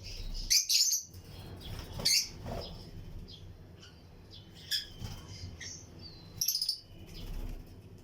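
A colony of lovebirds chirping. Shrill, sharp calls come in clusters: a bout about half a second in, then single calls near two seconds and near five seconds, and another bout at about six and a half seconds. Fainter chatter and wing flutters run between them.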